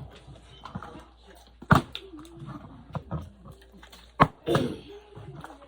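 A plastic bottle knocking sharply on a table twice, about two and a half seconds apart, between wordless whining and moaning voice sounds.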